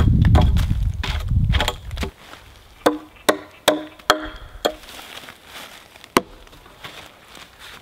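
Chopping at a wooden shelter pole to take off the branch nubs and bark. A fast run of strokes, about three a second, over a heavy low rumble stops about two seconds in. Six separate sharper chops with a short hollow woody ring follow.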